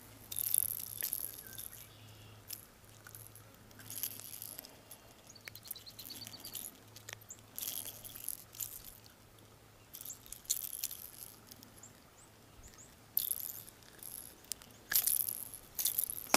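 Handling noise from unhooking a small largemouth bass from a jointed topwater popper: irregular bursts of high, crisp rattling and rustling, with sharp clicks between them, as the lure and its hooks are worked free.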